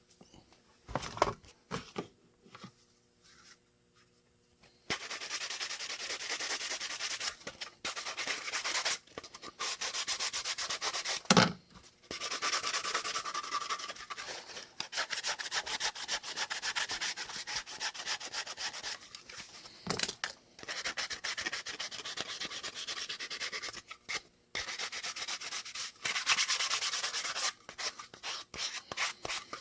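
Edges of a kydex holster being sanded and buffed smooth after cutting. The rasping sanding comes in long passes with short breaks, starting about five seconds in, with a sharp knock about eleven seconds in.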